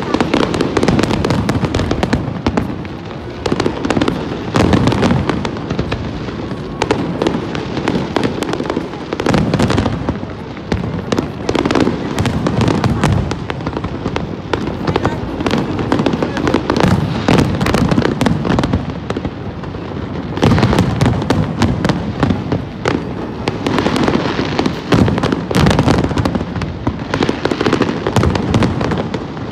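Aerial fireworks display: a dense, continuous run of bangs and crackling bursts that eases briefly a few times before picking up again.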